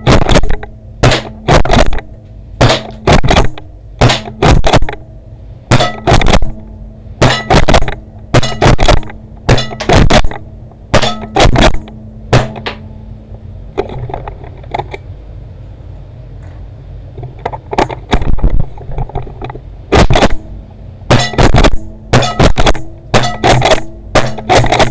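Modified JAG Scattergun pump-action paintball shotgun being fired and pumped over and over: a quick run of sharp clacks and thunks, often in close pairs, with a pause of a few seconds midway. A steady low hum runs underneath.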